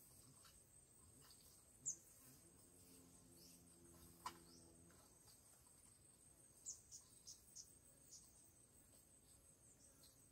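Near silence in a garden: insects keep up a steady, faint high trill, broken by a few short high chirps, most of them clustered about two-thirds of the way through, and a single click about four seconds in.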